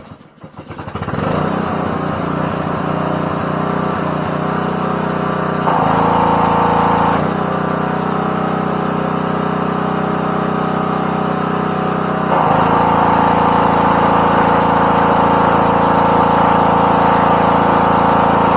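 Small gas engine of a pressure washer starting and running steadily. Twice it grows louder and takes on a higher tone: briefly about six seconds in, then again from about twelve seconds on.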